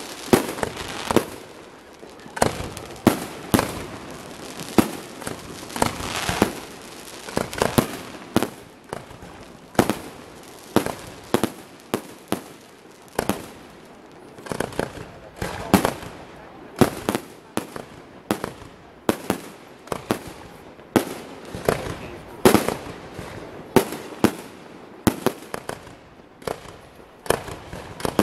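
Aerial fireworks display: shells bursting in a rapid, unbroken run of sharp bangs, nearly two a second.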